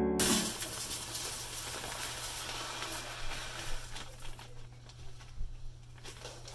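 Soy wax flakes poured from a plastic bag into a metal pouring pitcher: crinkling of the bag and the rustle of flakes landing on the pile. Music cuts off just after the start.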